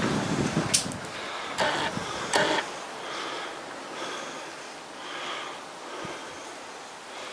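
Handling and movement noise of a person picking his way through a littered room, with a few sharp scuffs or knocks in the first two and a half seconds, then soft breathing close to the microphone.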